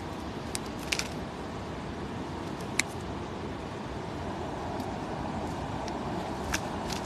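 Handling of a weighted cast net being gathered up: a few short, sharp clicks, the clearest near three seconds in, over a steady low outdoor rumble.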